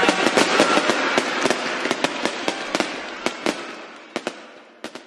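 Fireworks crackling with many sharp pops, fading steadily and dying away near the end.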